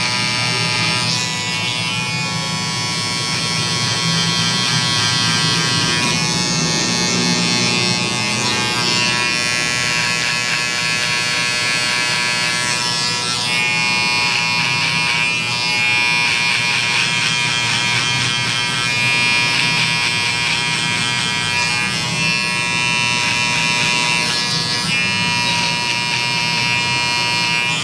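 Electric outlining hair trimmer buzzing steadily as its blade cuts the hairline around the ear.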